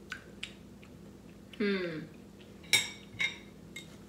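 Metal forks clinking and scraping against glass baking dishes: a few light taps early on, then a sharp ringing clink about three seconds in with a softer one just after.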